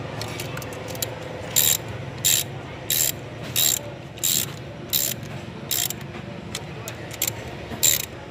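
Socket ratchet wrench clicking in short bursts, about one stroke every two-thirds of a second, as the nuts of an engine's tappet cover are tightened down.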